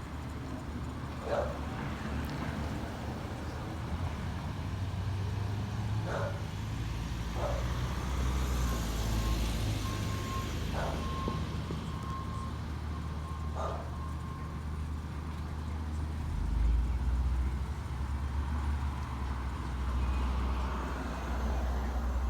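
Peterbilt 320 garbage truck with an Amrep automated side loader, its diesel engine running and revving up for a few seconds with a hiss. A backup alarm beeps steadily partway through, and a few short knocks come through.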